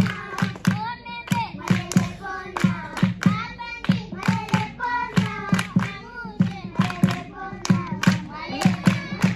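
Voices singing a song while hands clap a steady beat, about three claps a second.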